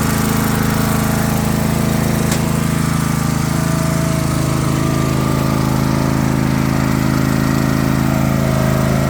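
Craftsman LT3000 riding lawn mower's engine running steadily, its note changing slightly about halfway through.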